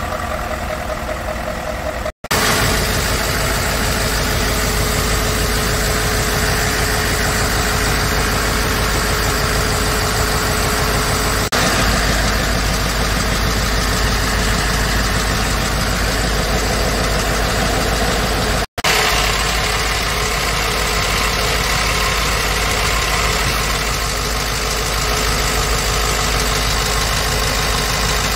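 Scania R520's 16-litre V8 diesel idling steadily, heard close to the engine. The sound drops out for an instant twice, at cuts in the recording.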